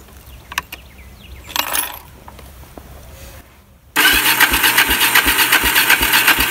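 A few faint clicks, then about four seconds in the electric starter of a Kawasaki Bayou KLF300's single-cylinder four-stroke engine begins cranking, a loud steady whir with a slow chug about three times a second. The engine is being cranked with its fuel valve left off, so no fuel reaches the carburetor.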